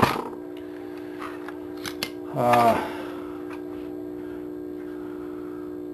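A steady hum with a few faint clicks, and one short wordless vocal sound from a man about two and a half seconds in.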